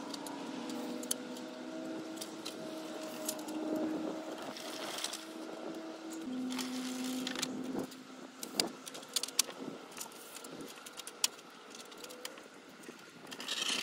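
Roll-out van awning being worked by hand: scattered sharp metal clicks and rattles from its frame and support legs, thickest in the second half, over a steady hum in the first half.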